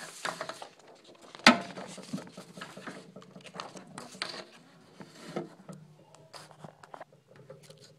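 Handling noise from a phone camera being picked up and repositioned: scattered clicks, knocks and rustles, with one sharp knock about one and a half seconds in.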